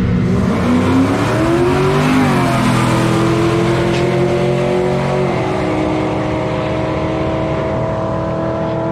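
Two drag-racing cars launching off the line and accelerating hard down the strip at full throttle. Their engine note climbs in pitch and drops back sharply twice, about two and five seconds in, as they shift gears.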